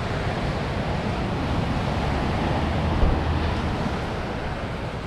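Ocean surf washing on a beach with wind buffeting the microphone, and a brief low thump about three seconds in.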